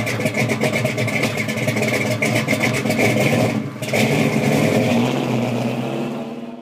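A car engine running hard and accelerating, its rapid firing pulses heard throughout. It drops out briefly about three and a half seconds in, picks up again, and fades away near the end.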